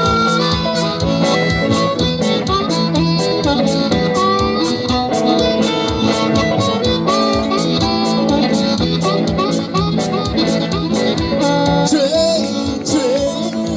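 A band playing an instrumental break with no singing: a lead instrument bending notes over guitar and a steady, driving drum beat.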